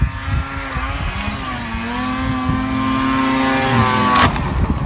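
Snowmobile engine running at high revs, its pitch rising a little about a second in and then holding steady. About four seconds in there is one sharp crash as the snowmobile hits a tree trunk, and the engine keeps running afterwards.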